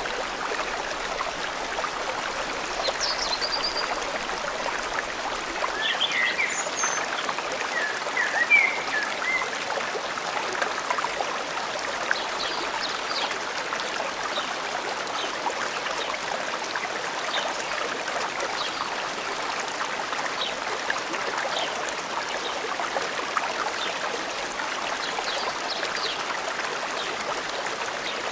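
A forest stream flowing steadily, with scattered short bird chirps over it, a cluster of them in the first third and a few more near the end.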